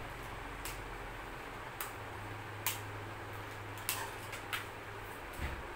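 Plastic toy train track pieces clicking and tapping on a tile floor as they are handled and fitted together, about five sharp clicks spaced roughly a second apart.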